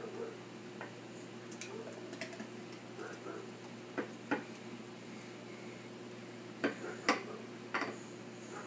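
Blender jar knocking against a drinking glass while a thick smoothie is poured into it: a few sharp clinks, two about halfway through and three more near the end, over a faint steady hum.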